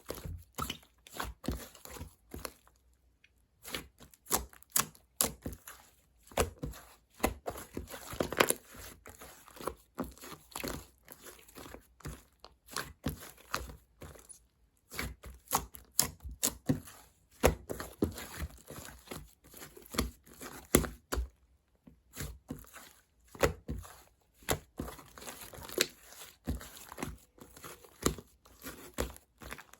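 Chewy, fluffy white slime being played with by hand: an irregular run of sticky squishes and small crackling pops, with a few short pauses.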